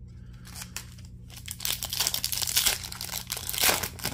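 O-Pee-Chee Platinum hockey card pack's foil wrapper being torn open and crinkled by hand: crackly tearing that starts about half a second in, builds, and is loudest near the end.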